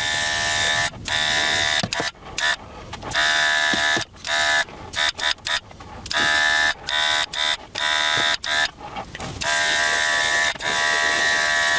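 Battery-powered airbrush spraying acrylic weathering paint: its small compressor motor whines with a high air hiss, switched on and off in a string of short bursts.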